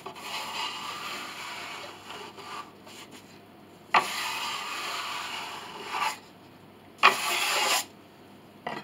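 Rubbing and scraping on the wood of a piano pinblock in three strokes. One runs through the first couple of seconds, one starts sharply about four seconds in and lasts about two seconds, and a shorter, louder one comes about seven seconds in.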